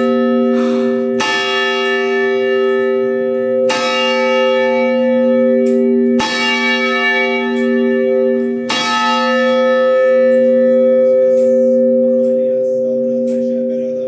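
Church tower bell heard close up in its bell chamber, struck four times about two and a half seconds apart. Each strike rings on, so the tones overlap into a continuous hum that slowly fades after the last strike.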